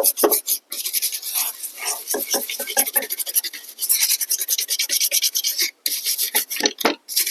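A brush scrubbing the PlayStation 4 Slim's ADP-160FR power supply circuit board to clean it, in rapid rasping strokes that pause briefly about six seconds in.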